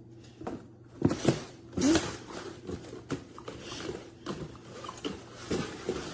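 A dog rummaging among its new chew toys: irregular rustling and knocking, with louder bursts about one and two seconds in.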